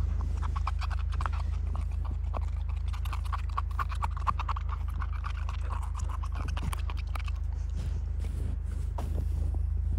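Rapid crunching and crackling in deep fresh snow close to the microphone, from a dog and a person moving about in it, over a steady low rumble. The crunching thins out about seven seconds in.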